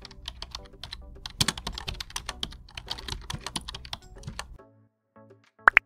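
Keyboard typing sound effect: rapid key clicks, stopping about four and a half seconds in, over light intro music. Soft musical notes follow, with a quick rising swoop near the end.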